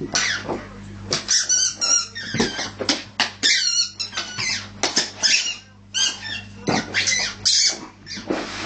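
A squeaky rubber ball squeaking over and over in quick runs of high, bending squeaks as a Rhodesian Ridgeback bites and chews it.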